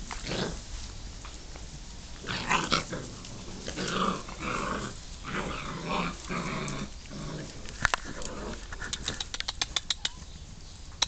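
German shorthaired pointer puppies growling in play: a string of short growls through the middle. A rapid run of sharp clicks follows near the end.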